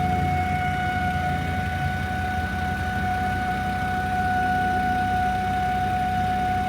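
A steady high-pitched hum or buzz at one unchanging pitch, coming from underneath the rear passenger side of a 2009 Volvo XC70, with the engine running low beneath it. The cause is unknown.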